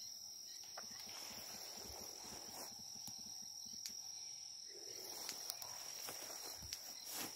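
Footsteps rustling and crunching through dry grass, irregular and faint, from a young elephant and the person following her. A steady high insect trill runs underneath.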